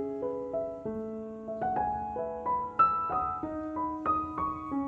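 Background piano music: a slow melody of single struck notes, a new note every half second or so, over held lower notes.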